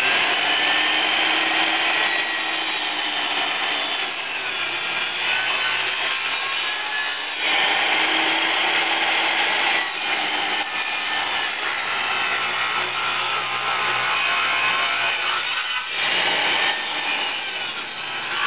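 Portable table saw cutting a wooden pallet down the middle as it is fed through the blade: a steady cutting noise, with the motor's hum sagging under load at times.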